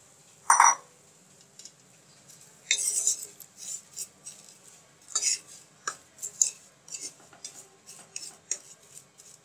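A wooden spoon stirring milk-soaked fried vermicelli in a nonstick pan, knocking and scraping against the pan in irregular strokes from about three seconds in. One sharp knock sounds about half a second in.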